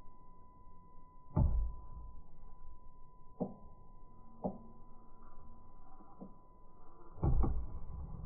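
RC crawler truck running with a steady high motor whine and a low rumble, with several sharp knocks and thumps as it bumps over the terrain, including a quick double knock near the end.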